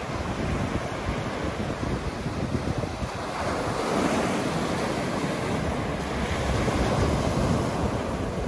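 Small sea waves breaking and washing up a sandy beach, one wave crashing with a louder rush about four seconds in. Wind rumbles on the microphone underneath.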